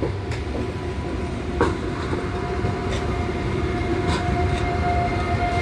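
A Renfe EuroMed electric train pulling out of the station: a steady electric traction whine over a low rumble, growing slightly louder.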